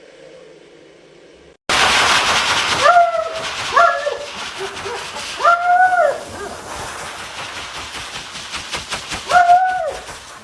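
A dog gives four short howls, each rising and then falling in pitch, the third the longest. They sound over a loud, steady hiss that cuts in suddenly about two seconds in.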